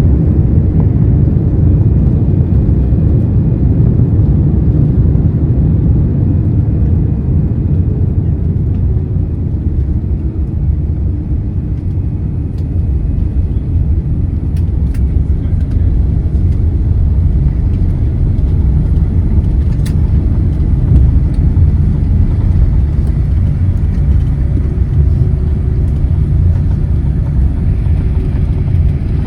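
Loud, steady low rumble of a vehicle moving, heard from inside it, dipping slightly partway through and building again.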